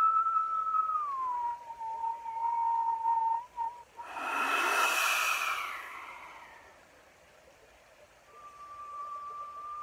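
A man whistling through pursed lips: a held note that slides down to a lower held note, then a loud breathy blowing rush with a falling whistle about four seconds in. After a short pause, another steady held whistle comes near the end.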